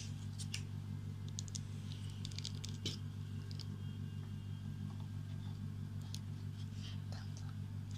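Plastic ketchup squeeze bottle being squeezed over pizza dough, giving scattered soft clicks and splutters, over a steady low hum.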